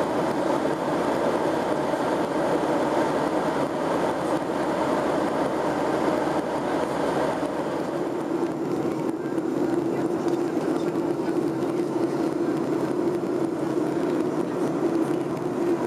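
Steady cabin noise of a Boeing 737-800 in flight: the rush of airflow and the drone of its CFM56 jet engines as heard inside the passenger cabin. About halfway through, the low rumble fades and a steadier hum comes up.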